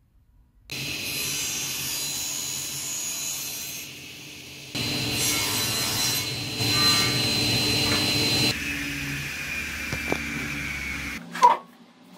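Sliding table saw running and cutting wood, starting suddenly a moment in, with a thin high whine over the cutting noise and a louder stretch in the middle. A single sharp knock near the end.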